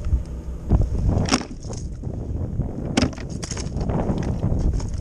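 Wind rumbling on the microphone, with water splashing beside a kayak as a small bass is let go and two sharp knocks about a second and three seconds in.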